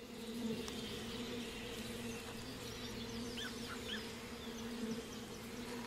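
Burzyan honeybees humming steadily around a log hive, a steady low-pitched buzz.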